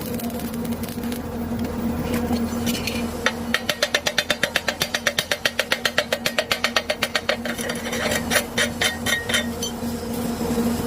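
A fast, even run of sharp knocks, about ten a second for some four seconds, then a few slower, irregular knocks, over a steady hum.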